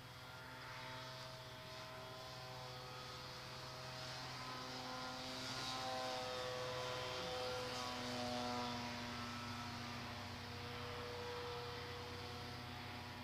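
Electric motor and propeller of a small home-made RC plane whining in flight. The pitch shifts up and down with throttle and passes, and the sound is loudest about five to nine seconds in, as the plane flies close overhead.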